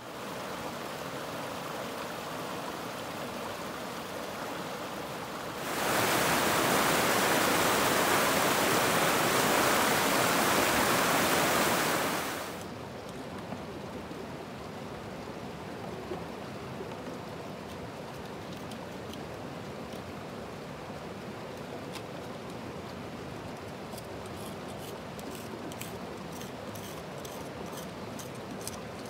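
South Fork of the Yuba River rushing steadily, much louder for about six seconds in the middle. Near the end comes a faint, regular metallic scraping, a few strokes a second, of a hand tool working a bedrock crevice.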